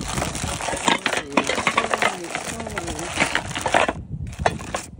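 Small hard objects clicking and clinking against each other in quick, irregular succession as they are handled and sorted through.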